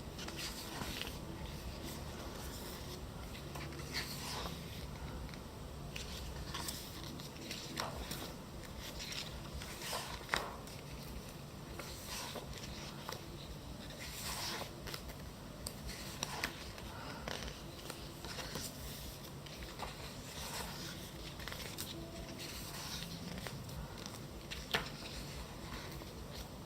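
Pages of a thick glossy photobook being turned one after another: soft paper rustles and scrapes with a few sharp clicks scattered through.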